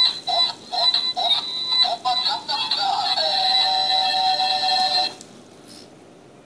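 Light-up spinning toy playing an electronic tune: quick short notes, then one long held note that cuts off suddenly about five seconds in.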